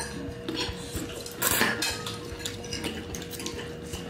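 Metal forks clinking and scraping on ceramic plates and bowls as spaghetti is twirled and eaten, in a run of small irregular clicks, with small eating noises.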